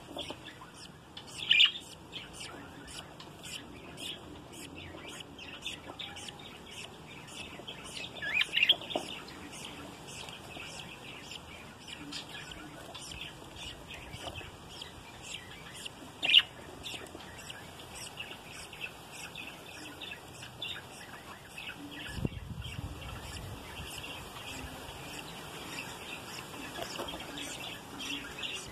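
Budgerigars chirping and chattering without a break. Three louder calls stand out: one near the start, one about a third of the way in and one just past the middle.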